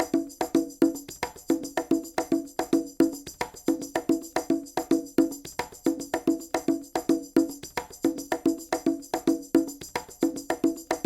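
Music: a quick, even percussion pattern of pitched knocking strikes with a jingling shimmer above.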